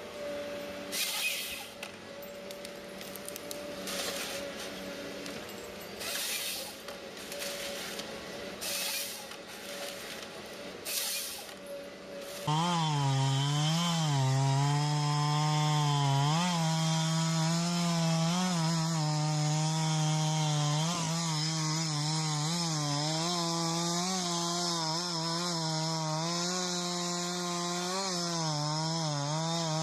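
A chainsaw starts running at high revs about twelve seconds in, its pitch wavering as it works, and slows down at the very end. Before it there is a steady machine hum with several short bursts of hiss.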